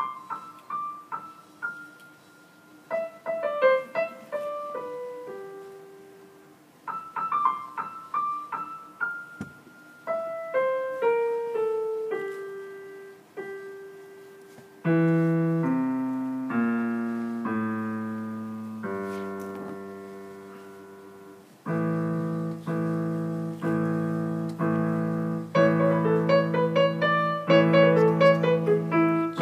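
Grand piano played by three players at once in a six-hands trio. It opens with light, high melodic phrases; about halfway in, loud low chords enter, and near the end repeated chords run under fast high figures.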